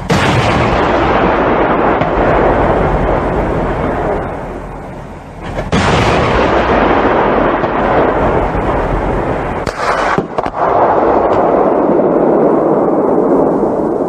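Three heavy 40 mm Bofors L/70 cannon shots from a CV9040, each a sudden bang followed by a long rolling echo that fades over several seconds; the bangs come at the start, about six seconds in and about ten seconds in.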